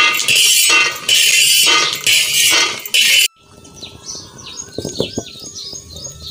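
Several loud scraping bursts of roasted peanuts being worked across an iron griddle. About halfway through it cuts to quieter sound: a few crackles from the wood fire and birds chirping.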